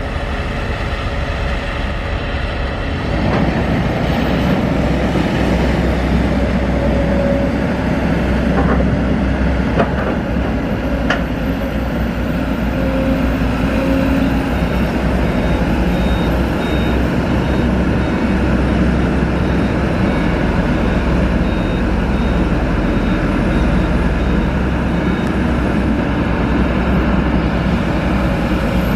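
Diesel engines of a Hino Dutro dump truck and a Kobelco SK200 excavator running steadily as the truck is driven and loaded with soil. A faint repeated high beep sounds through the middle.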